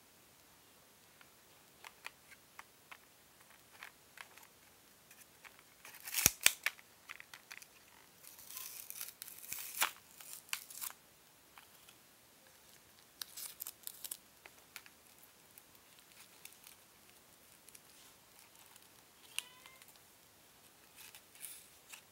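Plastic blister packaging of a sticky spider toy being handled and opened: scattered light clicks and crinkling, with louder bursts of tearing and crackling plastic about a quarter of the way in and again in the middle.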